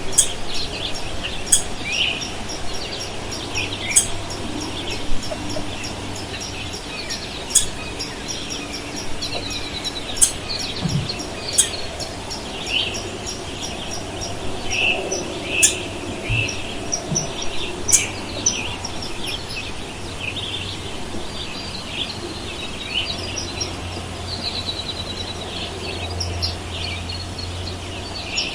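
Forest ambience: many small birds calling and chirping over a steady background hiss, with a few sharp clicks scattered through.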